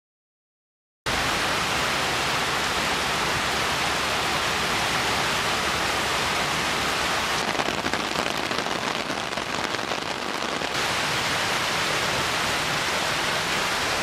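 Heavy storm rain pouring down, a dense steady hiss that starts suddenly about a second in.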